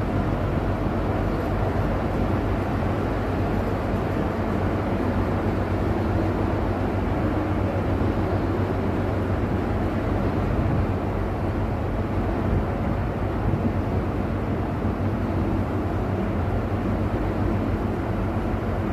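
A large engine running steadily, an even low rumble with a hum that does not change speed.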